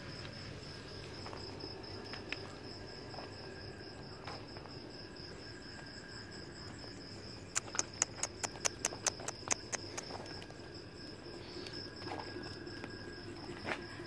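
Crickets chirping in a steady, high, pulsing trill. A quick run of about a dozen sharp clicks comes about halfway through.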